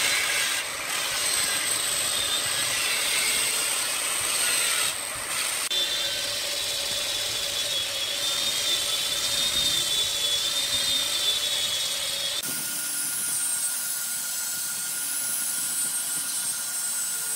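Electric angle grinder with a sanding disc running with a steady high whine as it sands a wooden workpiece spinning on a lathe. The whine and sanding noise shift abruptly twice.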